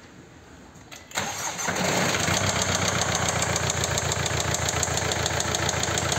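Mercedes GLA 220 engine started about a second in, catching at once and settling into a steady idle with a rapid, even ticking knock, a clatter the owner places at the top of the engine.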